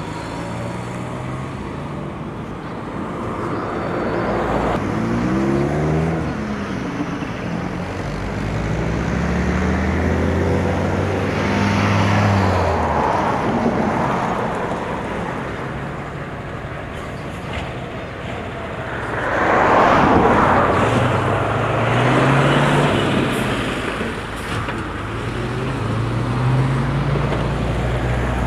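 Motor vehicles passing one after another, engine and tyre noise swelling and fading several times, loudest about two-thirds of the way through.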